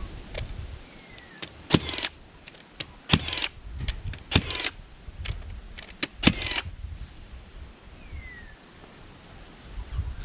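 Cordless fencing stapler firing staples into a hardwood post: four sharp shots, each with a short hiss after it, coming every one to two seconds, with lighter metallic clicks between.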